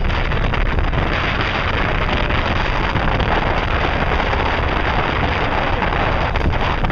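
Wind buffeting the camera microphone over open bay water: a loud, steady rush with a low rumble underneath.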